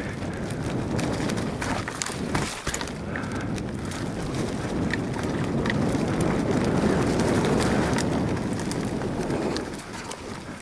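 Bike tyres rolling over a dirt trail thick with dry leaves, a steady rushing crunch with frequent sharp clicks and rattles from the bike. The noise eases near the end as the bike slows.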